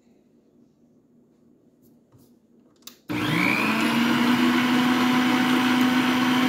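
Frigidaire stand mixer switched on after a small click about three seconds in: its motor spins up with a short rising whine, then runs at a steady speed, beating eggs into butter batter in a steel bowl.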